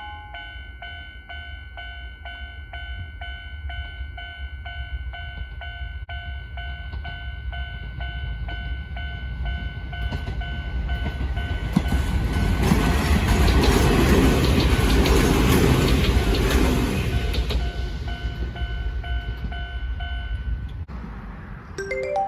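Japanese level crossing warning bell ringing in a steady, evenly repeating ding while a train passes over the crossing. The train's noise swells to its loudest about two-thirds of the way through, then fades, and the bell stops shortly before the end.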